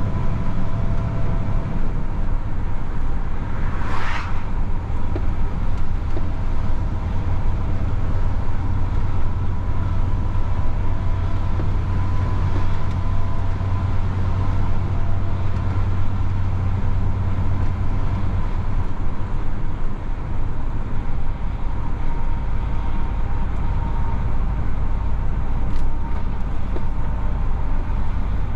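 DAF XF truck running on the road, its engine and road noise a steady low drone. About two-thirds of the way through the drone drops to a deeper note. There is a short hiss about four seconds in.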